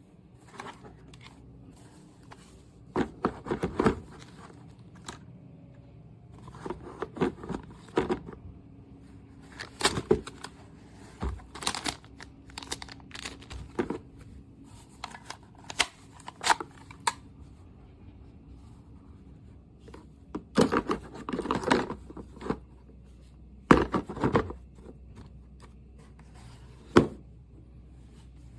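Hand-handling noise: irregular clicks, scrapes and rustles of parts being worked by hand, in scattered clusters, with no motor running.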